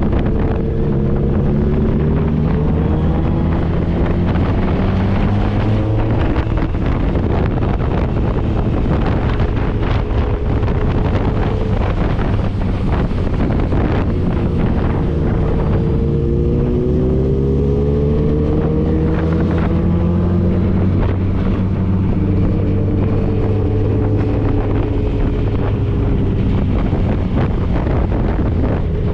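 Motorcycle engine running while riding, its pitch climbing and dropping several times with throttle and gear changes, under heavy wind rush on the microphone. Through the middle stretch the wind noise covers most of the engine.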